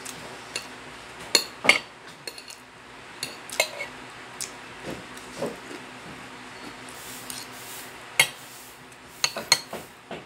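Spoon and fork clinking and scraping against a plate during a meal, in irregular sharp clicks, with a quick cluster of clinks near the end.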